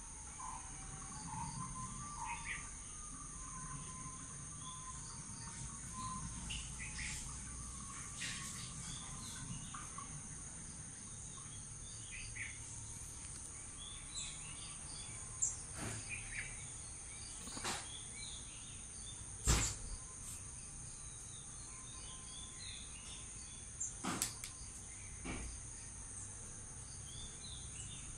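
Steady high-pitched insect drone with scattered bird chirps, broken by a few sharp knocks, the loudest about two-thirds of the way in.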